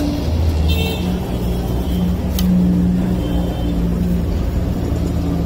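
Steady low rumble of motor traffic, with a vehicle engine running close by. A sharp click comes about two and a half seconds in.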